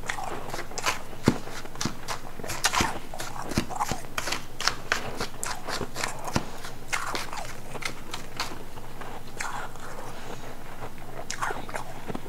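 Ice being bitten and chewed: irregular sharp crunches and crackles of refrozen powdery ice and ice nuggets, picked up close on a clip-on microphone, thinning out for a few seconds past the middle.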